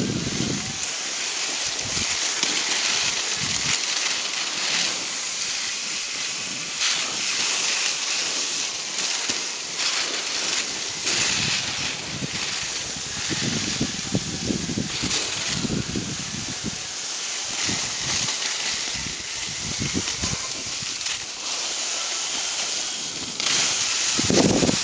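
Steel-edged skis sliding over snow with a steady hiss, mixed with wind on the microphone and a few low knocks.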